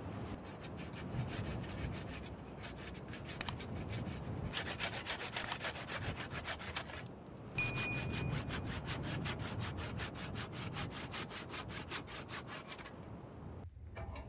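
An old saw cutting through wood in quick, even strokes. It pauses briefly about seven seconds in, then carries on and stops shortly before the end.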